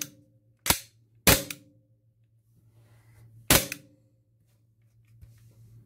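WE-Tech Glock 18C gas blowback airsoft pistol fired three times in semi-auto with no BBs, each shot a sharp, loud crack as the gas cycles the slide, with a short metallic ring. Two shots come close together about a second in and the third a couple of seconds later.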